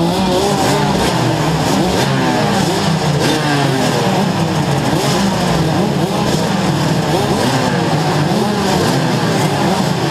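Rotax 125 Max DD2 two-stroke kart engines running in a group, idling and being blipped so that the pitch keeps rising and falling, several engines overlapping.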